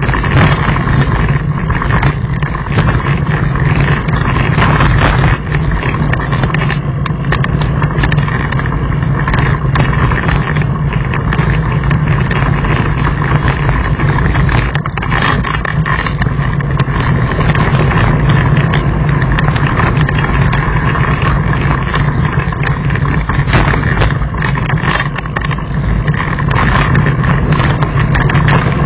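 Mountain bike running over a rocky gravel track: a steady rumble with wind rushing over the microphone, and frequent rattles and knocks from the bike over the stones.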